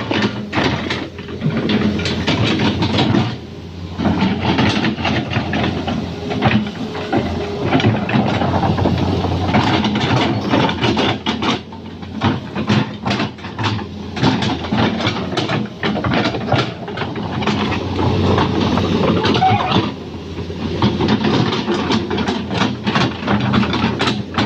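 Excavator running, its engine hum under many irregular metallic clanks and knocks, like tracks and steel parts rattling as the machine works.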